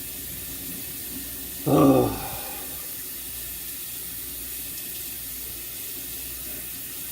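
Kitchen faucet running steadily into a sink during hand dishwashing, an even hiss of water. About two seconds in comes one short, louder pitched sound.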